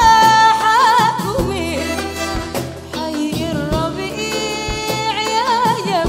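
A woman singing a Sudanese song with band accompaniment: a held high note at the start breaks into ornamented, wavering runs, over a steady backing with a percussion stroke about once a second.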